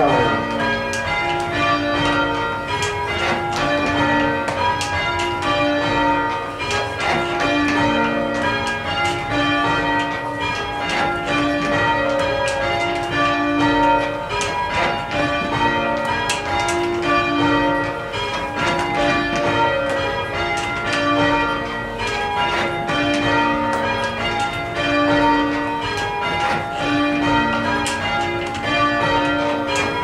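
Four cathedral tower bells rung full circle in rounds, each bell striking in turn in a steady repeating sequence from the highest (treble) down to the lowest (tenor).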